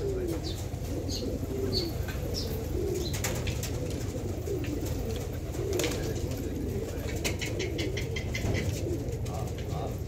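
A flock of domestic pigeons cooing continuously, many birds overlapping, with wing flaps as birds take off and land.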